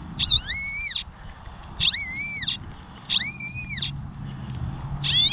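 Metal detector's target tone: a high beep that rises and falls in pitch, heard four times about every second and a half as the coil is swept back and forth over a buried target.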